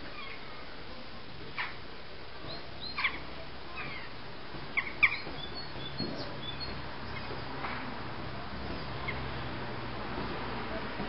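Jackdaws calling: a few short, sharp calls, some in quick pairs, the loudest about five seconds in, with fainter calls after.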